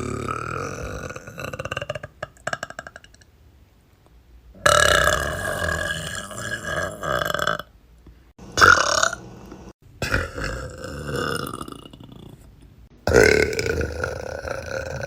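A young woman's loud, drawn-out burps, about five of them one after another, several lasting two to three seconds each.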